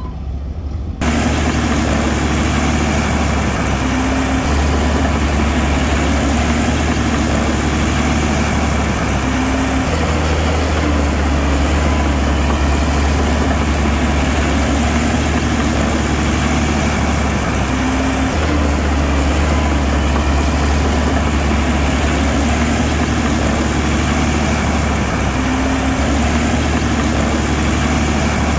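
Heavy diesel engine of earthmoving machinery running steadily at low revs, coming in abruptly about a second in.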